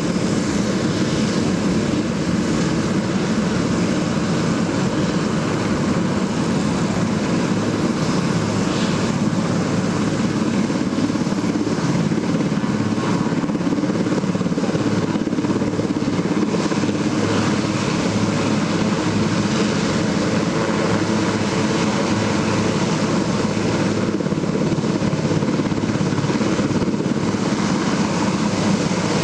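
Loud, steady aircraft noise that holds unchanged throughout, heaviest in the low range.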